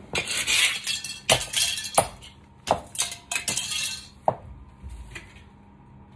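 Stiletto heels stepping on a tile floor and on crushed toy cars: a series of sharp clicks and cracks with pieces clinking, about one or two a second, thinning out after about four seconds.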